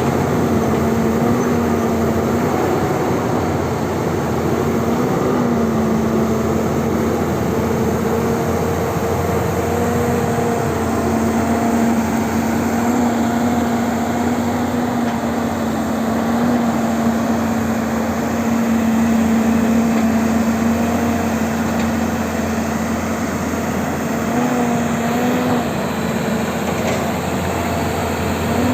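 Excavator's diesel engine and hydraulics running steadily under work, a continuous drone whose pitch bends up briefly a few times.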